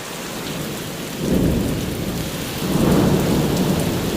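Steady rain falling, with two swells of low rumble, about a second in and again near three seconds.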